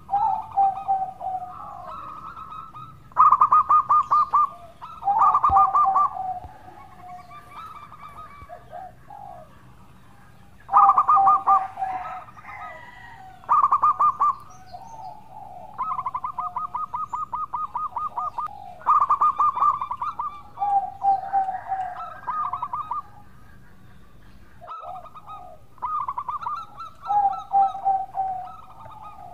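Zebra dove (perkutut) singing: phrase after phrase of quick, rolling staccato coos, with short pauses between the phrases.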